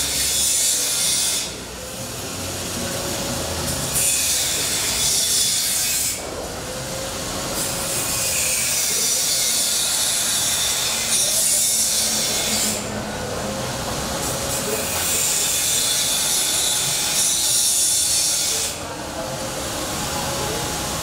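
Automatic krupuk slicing machine running, its blade slicing a log of cracker dough with a high scraping rasp. The rasp comes and goes in stretches of a few seconds over a steady lower running noise from the machine.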